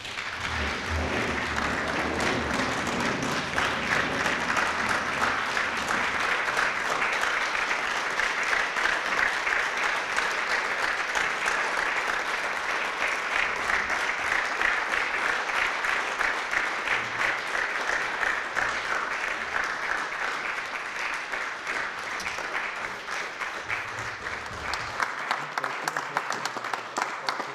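Audience applauding: many people clapping in a dense, steady patter, easing off a little in the last few seconds.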